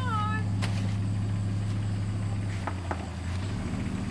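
Pickup truck engine idling with a steady low hum, with a few light clicks about two and a half to three seconds in.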